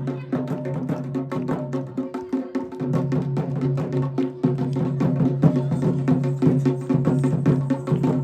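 Instrumental Kumaoni folk music: fast, even drum strokes over a steady held drone, which breaks off briefly about two seconds in.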